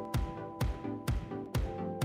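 Upbeat background music with a steady dance beat, a kick drum hitting about twice a second under held chords.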